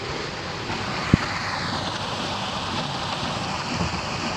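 Steady rush and splash of creek water pouring through a homemade water wheel with white PVC-pipe paddles, with one sharp knock about a second in and a faint whine that drops in pitch shortly after.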